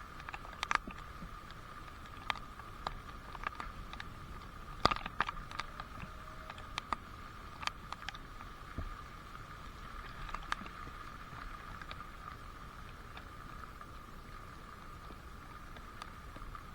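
Water drops falling irregularly as sharp drips, frequent for the first ten seconds or so and then sparse, over a steady faint hiss and a steady high tone.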